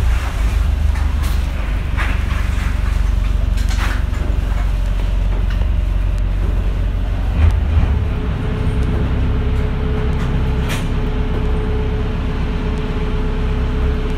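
Engine of a small passenger ferry running steadily, a loud low rumble mixed with rushing wind and water. A steady hum joins about halfway through.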